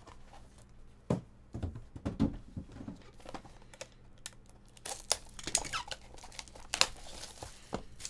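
Cardboard trading-card boxes handled and set down with a few dull knocks, then a box cutter slitting the plastic shrink-wrap on a sealed card box and the wrap crinkling and tearing as it is pulled away, loudest about seven seconds in.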